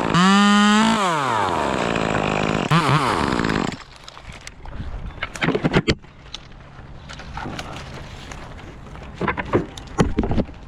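Chainsaw running at full revs, its pitch dropping off and climbing again near the start, then cutting out about four seconds in. Scattered knocks and rustles follow.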